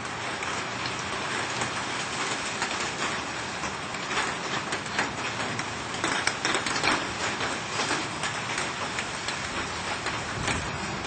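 Steady heavy rain, a constant hiss with many separate drops spattering on surfaces; no thunder is heard.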